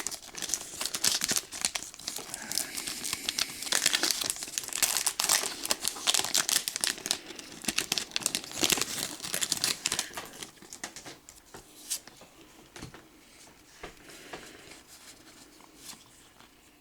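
Foil booster pack wrapper crinkling and being torn open by hand, a dense crackle for about ten seconds that thins to sparser, quieter rustles near the end.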